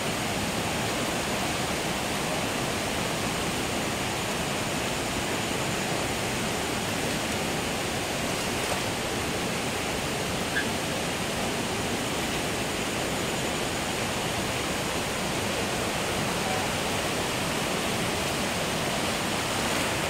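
Swollen, muddy forest stream rushing steadily, a continuous even wash of fast-flowing water.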